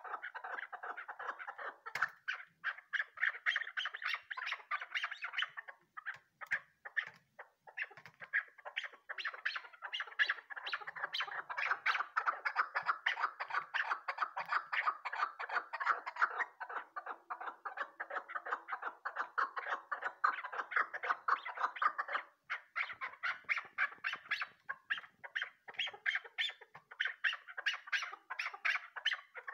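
Chukar partridge calling: long runs of fast repeated clucking "chuk" notes, several a second. The runs break off briefly twice, once about six seconds in and again about twenty-two seconds in.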